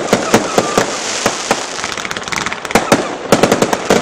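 Aerial fireworks shells bursting: a rapid run of sharp bangs and crackling, with a dense cluster of cracks about three seconds in.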